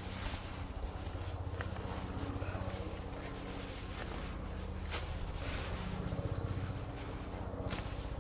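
Outdoor woodland ambience: short high bird chirps repeating at intervals over a steady low hum, with a few sharp clicks.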